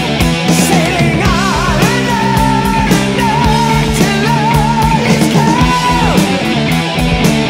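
Heavy metal music: a high lead melody of long held notes, several with a wavering vibrato, over a dense band backing with steady cymbal strokes.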